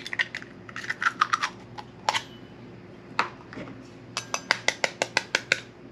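Sharp clicks and clinks of a metal fork against eggshell and a ceramic plate as eggs are cracked open, scattered at first, then a quick run of light taps about four a second near the end.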